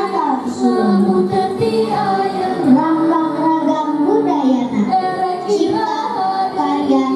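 A group of children singing a song together with music accompaniment.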